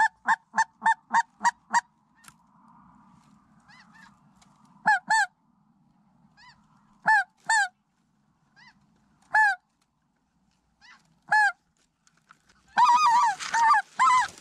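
Goose honking: a fast, even run of about six honks a second, then single and paired honks every couple of seconds, then a quick flurry of honks near the end.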